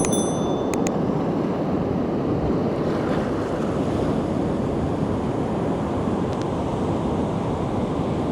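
Ocean surf washing steadily on the shore, with wind noise on the microphone. A few faint high clicks come in the first second.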